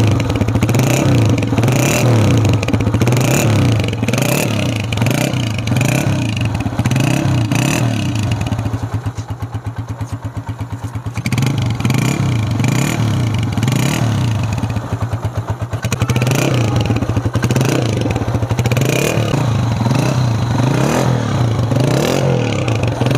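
Honda CG 125's single-cylinder four-stroke engine breathing through its stock chrome silencer, revved again and again with short throttle blips. About nine seconds in it drops to a steady idle for a couple of seconds, then the revving resumes.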